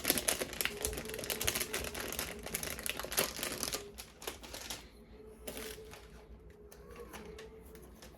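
Plastic toy parts and packaging being handled: a quick run of small clicks and crinkling for about five seconds, then sparser clicks.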